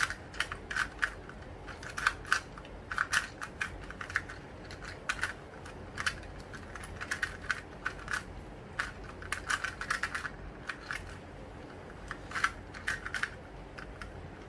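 2x2 Rubik's cube being scrambled: its plastic layers are turned in quick runs, clicking and clacking in irregular bursts of several turns with short pauses between.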